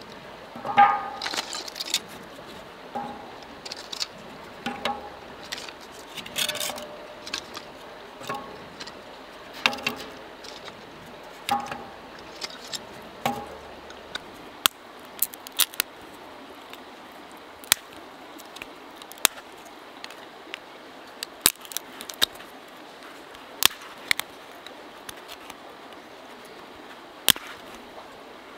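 Irregular knocks and clinks of sticks and wood being handled while a campfire is laid, then scattered sharp snaps, over the steady rush of a creek.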